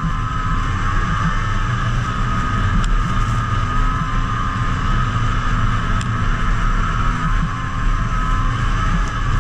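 Snowmobile engine running steadily at cruising speed, a low rumble under a steady high whine.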